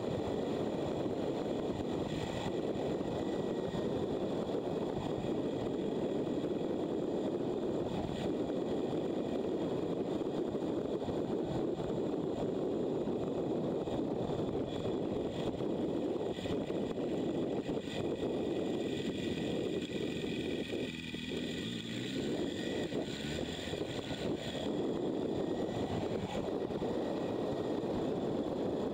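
Motorcycle riding at road speed, heard from an onboard camera: steady wind rush on the microphone mixed with engine noise, easing off briefly about two-thirds of the way through.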